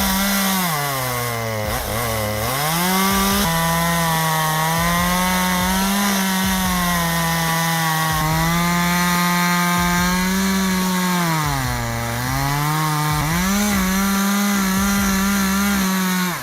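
Gas chainsaw running at high revs while sawing wood, its engine note steady and high. The pitch sags twice, about two seconds in and again near twelve seconds, then climbs back.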